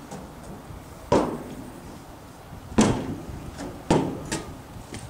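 Three loud thuds at uneven spacing, each dying away quickly, with a couple of fainter knocks between them.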